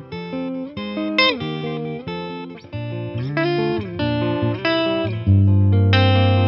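Eastman T185MX semi-hollow electric guitar played clean through a Boss Nextone amp: a quick improvised single-note line with a few bent notes, then a loud low note rings out about five seconds in.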